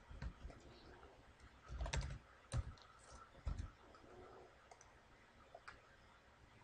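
Faint computer keyboard keystrokes and mouse clicks, with a few heavier thumps between about two and four seconds in.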